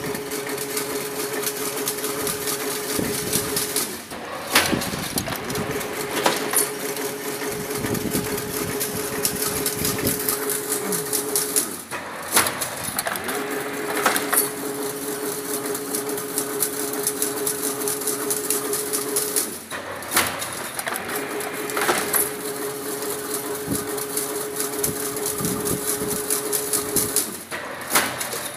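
Chain-link (jali) fence weaving machine running: a steady motor hum with fast, even clatter. About every eight seconds, four times in all, the sound briefly dips and a sharp knock marks the end of one weaving cycle before the next begins.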